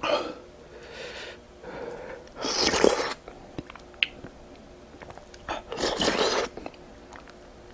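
A person's breathy bursts: about five noisy sniffs and sharp breaths, the loudest about two and a half seconds in and another about six seconds in. They are the kind of reaction drawn by extremely spicy chicken feet.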